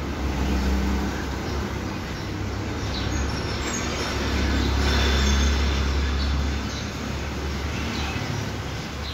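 Low rumble of passing road traffic, swelling to its loudest about halfway through and then fading.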